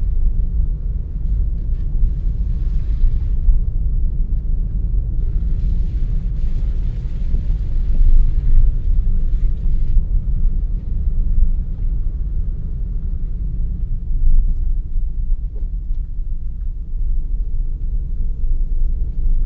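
A car driving along a road: a steady low rumble of engine and tyres, with a lighter hiss of road or wind noise swelling briefly a couple of times.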